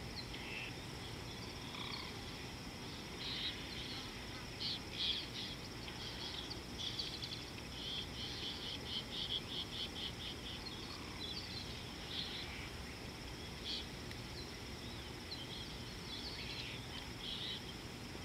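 Natural ambience: a steady high insect drone with birds chirping and calling over it, including a fast trill of repeated notes around the middle, over a constant low background hiss.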